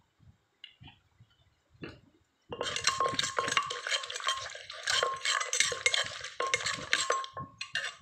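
Metal spoon stirring and scraping around the inside of a clay mortar, mixing a pounded salad. The scraping begins about two and a half seconds in and runs on with a steady ringing tone, stopping just before the end.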